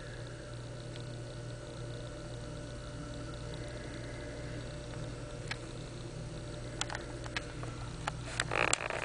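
Steady low background hum, with a few faint clicks in the second half and a short rustling noise near the end.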